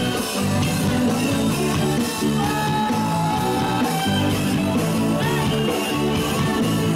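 Live band music with an electric guitar playing held and bending lead notes over a steady bass line.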